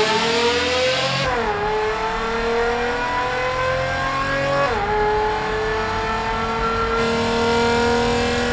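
Mercedes-Benz M120 V12 accelerating hard through the gears, its note rising steadily and dropping sharply twice at upshifts, about a second in and again near five seconds. Driven through a road tunnel.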